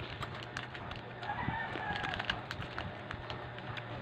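Crinkly plastic snack wrapper crackling as it is handled and opened. A rooster crows once in the background, starting a little over a second in and lasting about a second.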